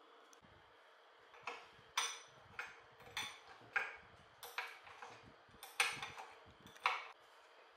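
Sharp metallic clinks and clicks, about a dozen spaced irregularly, starting about a second and a half in. They come from a steel combination wrench working the bar-mounting nuts of an old Homelite chainsaw as the nuts are loosened.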